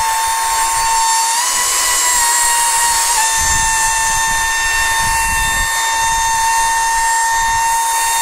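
Dyson vacuum cleaner running at full suction, a steady high motor whine over a rush of air as it sucks dust out of an opened Dyson V10 handle housing. The whine's pitch dips slightly about three seconds in.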